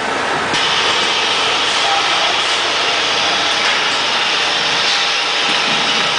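Automatic powder bag-packing machine running: a steady, loud mechanical noise from the belt conveyor and bag-closing section, with a higher, brighter noise joining about half a second in and holding steady.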